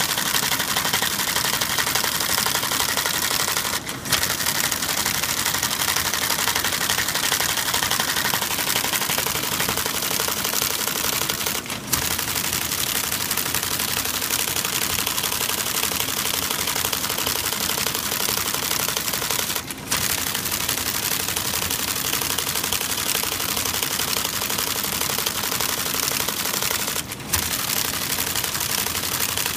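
IBM 1053 console printer, a Selectric-type typing mechanism, typing continuously in a rapid clatter, with a brief pause about every eight seconds that ends in a single sharp clack. Its mechanism is still partly gummed with solidified grease and dirt, leaving the spacing a bit erratic.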